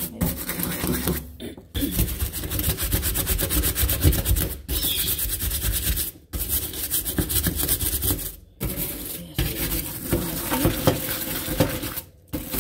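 Stiff plastic bristles of a hand dish brush scrubbing a soapy gas stovetop around a burner base: rapid back-and-forth scratchy strokes, broken by several brief pauses.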